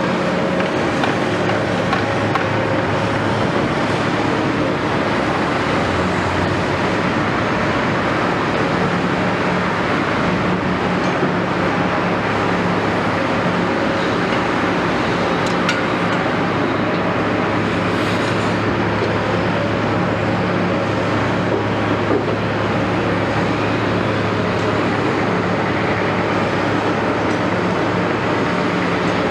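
Caterpillar 329E excavator's diesel engine running steadily under work, with a few faint knocks.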